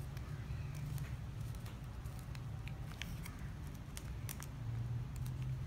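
Light scattered clicks and rustles of ribbon strips and a metal paper clip being handled as ribbon is woven into a ketupat, over a steady low hum.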